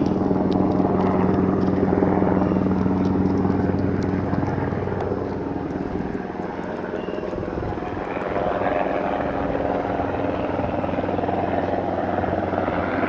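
Helicopter engine and rotor running steadily with a fast rotor chop, dipping a little in loudness about halfway through before building again.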